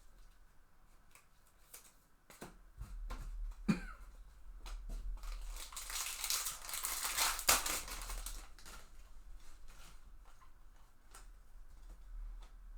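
Trading cards and a foil pack wrapper being handled: scattered clicks and taps, then a few seconds of crinkling and tearing from about five and a half to eight seconds in, as a pack is torn open.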